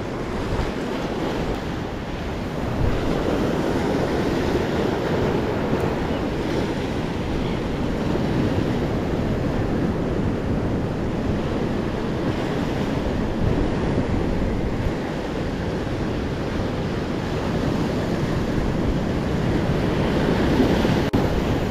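Ocean surf washing and swirling up the sandy shore close by, with wind buffeting the microphone.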